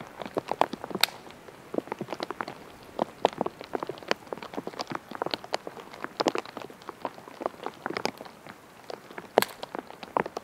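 Raindrops striking a surface, heard as scattered, irregular sharp ticks, several a second.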